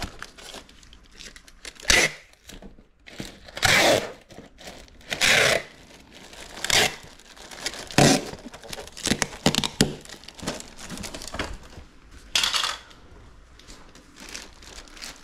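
Adhesive tape pulled off the roll in several short rasping pulls, about six, with plastic packing material crinkling in between.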